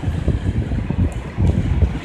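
Wind buffeting the microphone in gusts, over the wash of shallow surf running up the sand.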